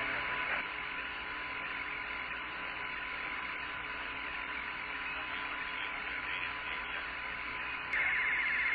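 Steady hiss and hum of the Apollo 17 EVA radio channel between transmissions, with a faint steady tone. Near the end a louder, rapidly pulsing buzz comes in.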